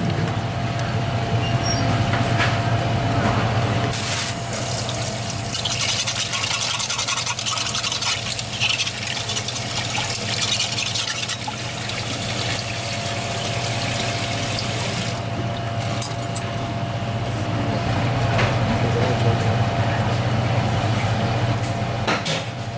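Steady low machine hum of a kitchen, with water running in a steady hiss for about ten seconds in the middle.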